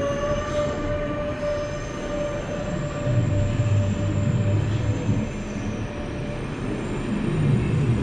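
A train running past on the track. A held, pitched tone fades out over the first two seconds or so, and a deeper rumble sets in about three seconds in.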